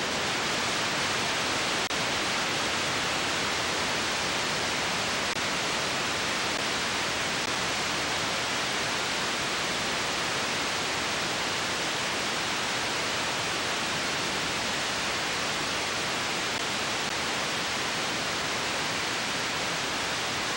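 Analog TV static: the steady, even hiss of a television tuner receiving no signal, a featureless rushing noise with no tone or rhythm in it.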